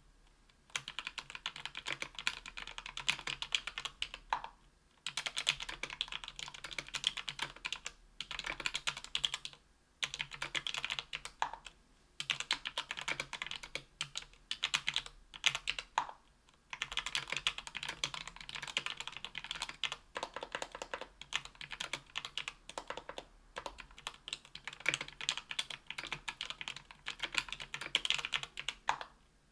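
Typing on a Tofu 60% aluminum keyboard with lubed JWK H1 78 g linear switches, an aluminum plate and GMK keycaps. Quick runs of keystrokes, broken by short pauses every few seconds.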